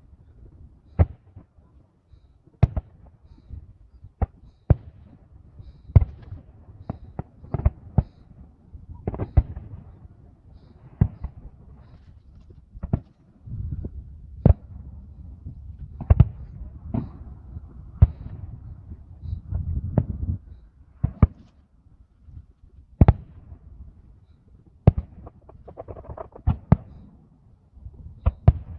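Fireworks going off: irregular sharp bangs, about one or two a second, over a low rumble that swells for several seconds midway.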